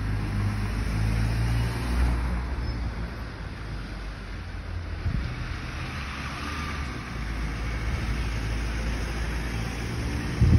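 Diesel engine of a Mercedes-Benz Sprinter-based minibus running as it drives round a bend and passes close by, after a car goes past first. A brief bump is heard near the end.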